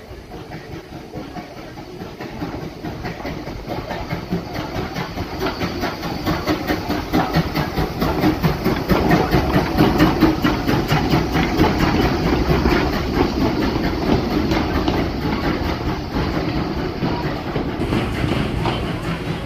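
Steam train running on the rails, growing louder over the first half and then holding, with a rapid clatter of wheels over the track.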